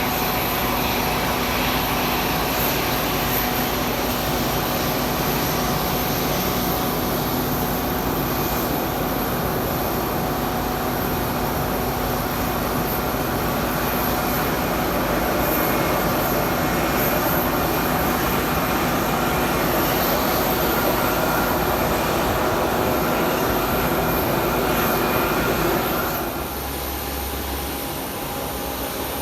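Aircraft engines running loudly and steadily, a broad roar with several held tones in it, which drops off fairly suddenly near the end.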